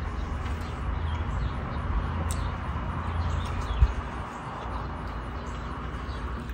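Faint birds chirping over a steady low rumble and hiss of outdoor air, with a single light knock about four seconds in.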